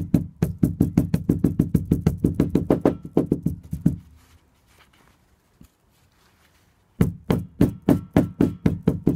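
Claw hammer beating an avocado seed wrapped in a paper towel on a wooden deck, breaking the seed into pieces. The blows come as quick, evenly spaced knocks, several a second. They stop for about three seconds midway and then start again.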